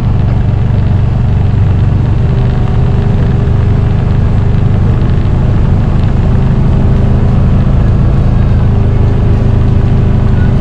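A motor vehicle's engine running steadily, a loud constant low hum with no change in pitch.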